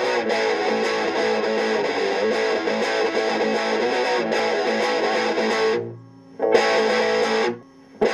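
Opening theme music led by guitar, dropping out twice briefly near the end.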